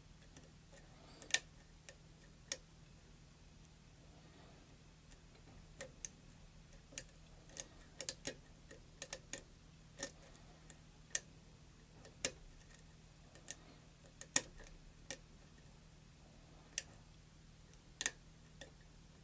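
Schlag pin tumbler lock being picked, the pick and pins clicking inside the cylinder. The clicks are sharp and irregular, scattered one or several to the second, as the pins are worked while the lock sits in a false set.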